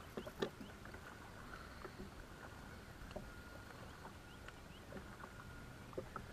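Light knocks and clicks of feet and fishing tackle on an aluminium bass boat's deck, the loudest about half a second in, over a faint steady thin whine.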